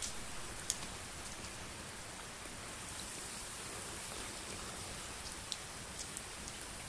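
Water trickling and dripping onto crumpled plastic wrap, making a steady rain-like patter with scattered sharper drip ticks, the sharpest about a second in.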